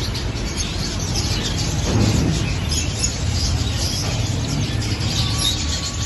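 A flock of caged small parrots, budgerigars and parakeets, chirping and chattering with many overlapping short calls, over a steady low rumble.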